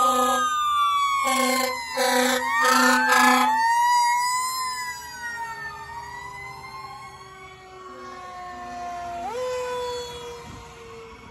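Fire trucks sounding their air horns in about five short blasts over wailing sirens during the first few seconds. The sirens keep wailing and grow fainter as the trucks pass.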